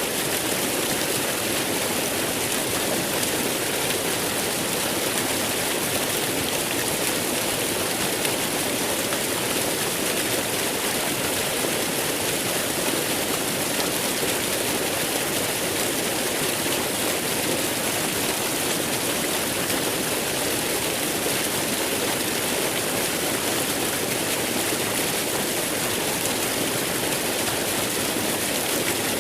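Waterfall: water falling and splashing in a steady, unbroken hiss.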